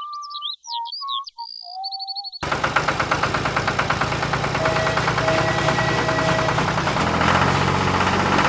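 Whistled, chirping tones, then, a little over two seconds in, an abrupt switch to a loud, fast, steadily pulsing engine-like rattle with a low hum beneath it.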